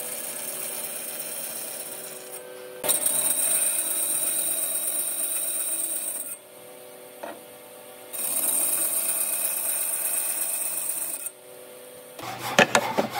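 A power tool working wood, run in two bursts of about three seconds each with quieter running between them. A few sharp knocks follow near the end.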